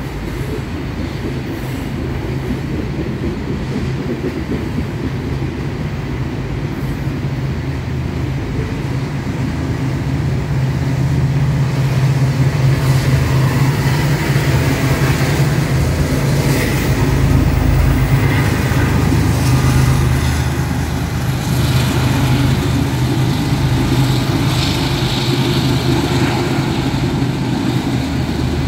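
Train with diesel locomotives passing by: a steady low engine drone that grows louder through the middle and eases slightly near the end.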